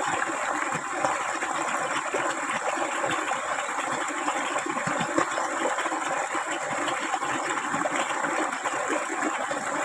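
Flowing water rushing steadily, without a break.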